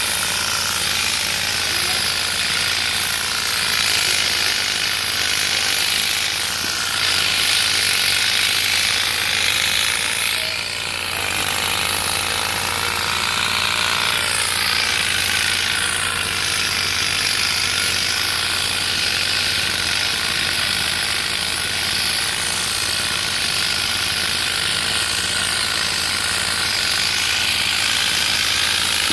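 Olistar Tuono pneumatic olive harvester, rated at 1,600 strokes a minute, running steadily with a rapid mechanical clatter as its combs beat through the olive branches. It dips briefly about eleven seconds in.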